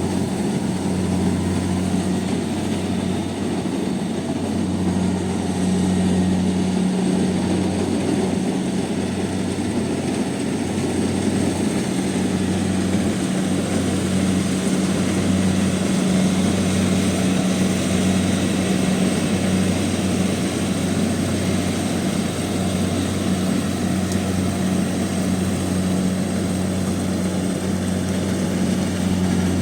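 Kubota combine harvester running steadily, its engine giving a constant low drone with a dense mechanical rumble over it.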